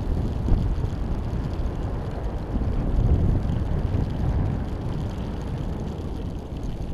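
Wind buffeting the microphone of a camera riding on a high-altitude balloon payload in flight: a steady low rushing noise that swells a little about three seconds in.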